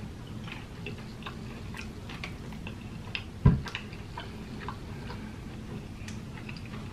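Close-miked chewing of crispy fried chicken: many small, irregular crunchy clicks, with one loud thump about halfway through.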